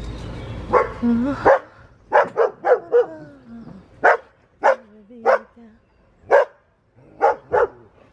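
A dog barking repeatedly, about a dozen short sharp barks at uneven spacing, some in quick pairs and threes.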